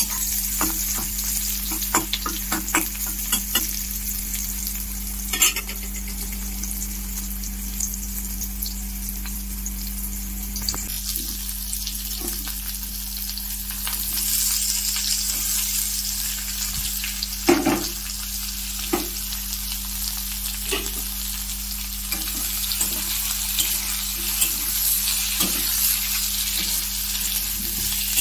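Green capsicum frying in hot oil in a wok with a steady sizzle, a metal spatula scraping and clicking against the pan as it stirs. About halfway through, chopped potato and onion drop into the pan and the sizzle grows louder.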